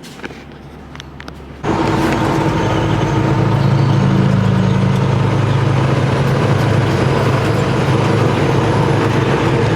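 Semi truck's diesel engine running steadily. It comes in abruptly about a second and a half in, after a quieter stretch with a few faint clicks.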